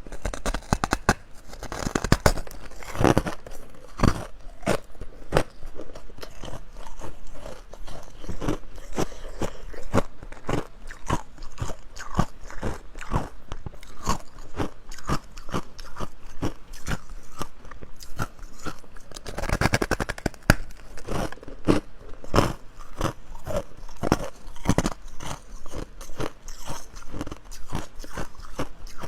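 Ice being bitten and chewed close to the microphone: a continuous run of crisp crunches and crackles, with louder clusters of crunching near the start and about two-thirds of the way through.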